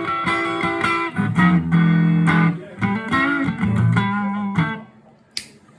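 Electric guitar played through a guitar amplifier. It opens with a quick run of picked notes, then moves to held low notes and chords, some bent or wavering. Near the end it dies away, with a brief scrape of string noise.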